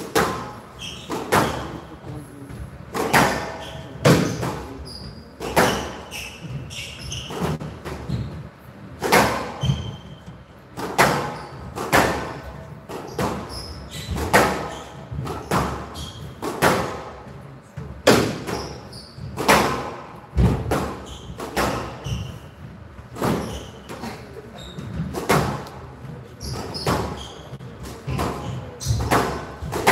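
A squash rally: the rubber ball cracking off rackets and the front wall about once a second, each strike ringing in the glass-walled court hall. Short high squeaks of the players' court shoes on the floor fall between the strikes.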